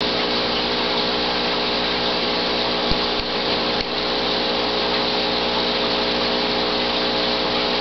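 Aquarium pump running steadily: a constant rush of moving water over a motor hum.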